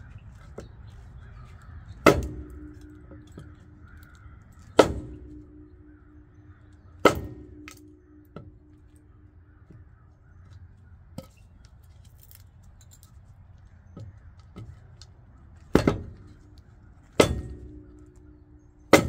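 The end of a wooden 2x4 struck hard against a van's aluminum wheel six times. Three blows come a couple of seconds apart, then after a pause three more, each a sharp knock followed by a short ringing tone. The blows are meant to break loose an aluminum wheel corroded fast to its steel hub.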